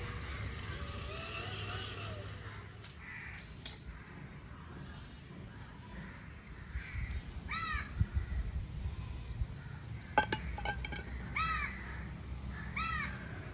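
A crow cawing, with single harsh caws a few seconds apart, clearest a little past halfway and twice near the end. A few sharp clicks come shortly before the last caws.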